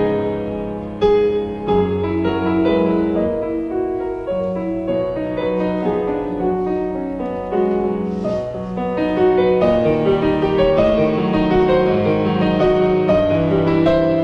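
Slow instrumental keyboard music, piano-like, playing held chords that change about every second.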